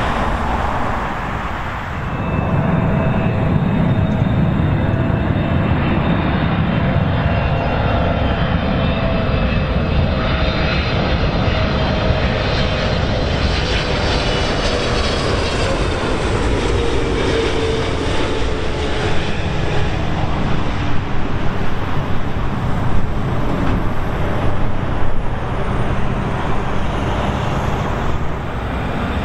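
Boeing 777-300ER's GE90 turbofans on final approach, passing close overhead: a steady jet roar with a deep rumble and whining fan tones that slowly fall in pitch.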